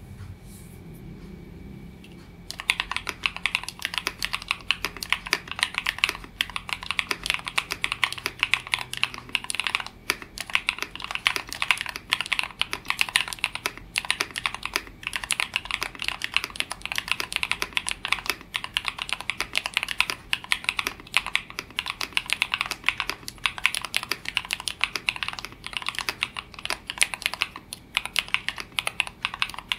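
Mechanical keyboard with stock Ajazz Huano Gift linear switches, dampened with PE foam and an IXPE pad, typed on fast and without a break, a dense stream of key strikes that starts a couple of seconds in. The switches have long-pole stems and a thocky sound.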